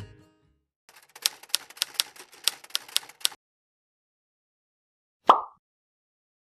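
Typewriter keys typing: about ten sharp keystrokes over two and a half seconds, then, after a pause, one sharp strike with a brief ring.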